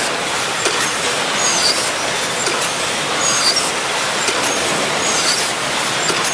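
Automatic bag-filling packaging machine running in a repeating cycle about every two seconds. Each cycle brings a short hiss of compressed air, blown under the bag stack as a bag is lifted so it peels away from the bag beneath, and a brief high squeak.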